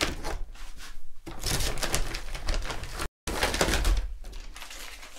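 Crinkling and rustling of MRE food pouches made of foil laminate and plastic as they are handled and set down on a table, with small clicks and knocks. The sound drops out completely for a moment just after 3 seconds.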